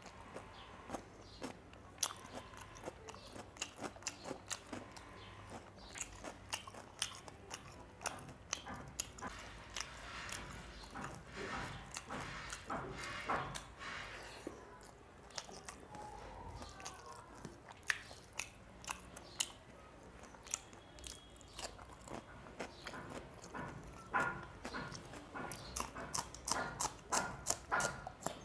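Close-miked mouth sounds of a person chewing a hand-fed mouthful of rice and small-fish curry: wet smacking and many short crunchy clicks. The clicks come thickest near the end.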